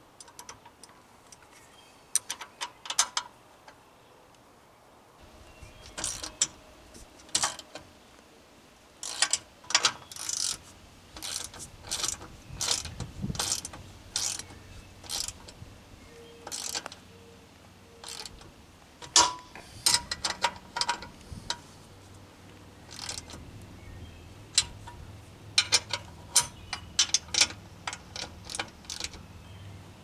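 Socket ratchet clicking in quick irregular bursts as the nuts on the U-bolts of a bumper-mounted hitch receiver are run down and tightened; the clicking is sparse at first and comes thick and fast from a few seconds in.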